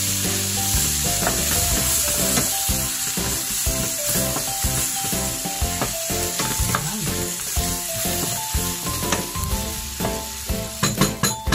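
Chopped onion, green pepper and tomato with tomato paste sizzling in a hot frying pan as a wooden spatula stirs them. Near the end come several sharp clicks of the spatula knocking against the pan.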